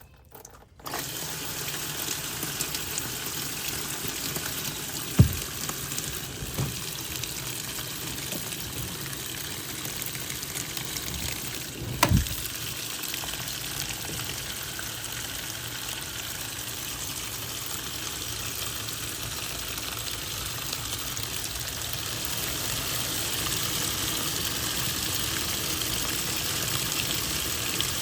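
Water gushing steadily from a tap into a twin-tub washing machine's tub, filling it, starting about a second in. Three short knocks stand out, the loudest about twelve seconds in.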